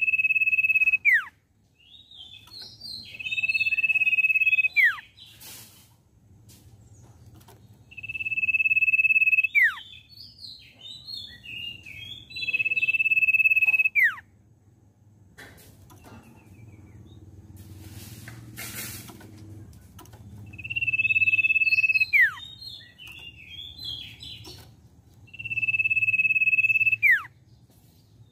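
Common iora singing: six long, steady whistles, each ending in a sharp downward slur, given in three pairs with a burst of short chattering notes between the two whistles of each pair. A quieter spell about halfway through holds a brief hiss.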